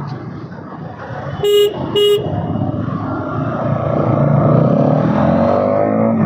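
Two short vehicle-horn toots about half a second apart, near the start, over the running of a Bajaj Pulsar NS200's single-cylinder engine, which rises in pitch as it accelerates near the end.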